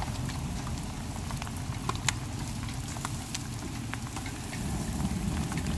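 Chicken sizzling on an open charcoal grill in the rain, a steady hiss and patter with scattered small crackles.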